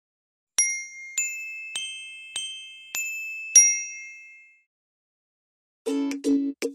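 A logo jingle of six bright, bell-like chime notes struck about every half second, each ringing and fading away, the last one the loudest. After a short pause, a plucked ukulele tune starts near the end.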